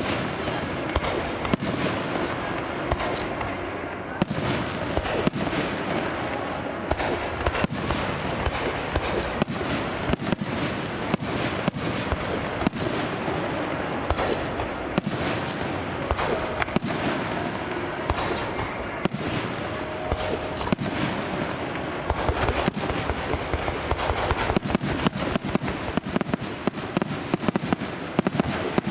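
Fireworks going off in quick succession: a dense, continuous run of sharp cracks and pops, packing tighter near the end.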